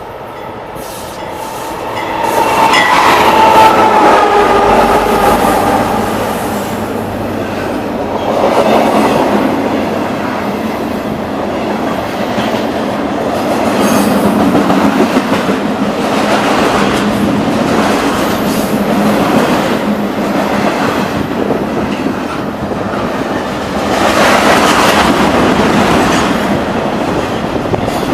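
Train passing close by, its wheels clattering over the rails in a loud rush that swells and eases as the cars go past, with a whine that falls slightly in pitch a few seconds in as it draws level.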